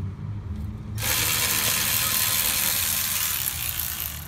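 Cordless electric ratchet running, starting suddenly about a second in and running steadily for about three seconds, as it backs out a brake caliper bracket bolt.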